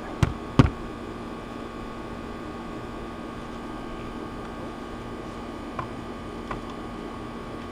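Two sharp clicks a fraction of a second apart from hands working a plastic Melnor HydroLogic multi-zone hose timer on a spigot, then a steady hum with a couple of faint ticks.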